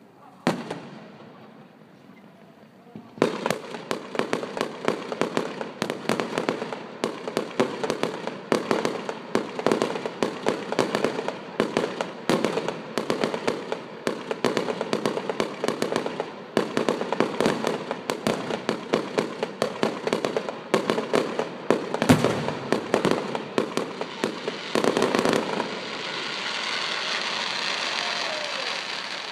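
Fireworks display: a single bang about half a second in, then from about three seconds a rapid barrage of bangs and crackles lasting some twenty seconds, the loudest bang near the end of it. After the barrage stops, a steady crackling hiss.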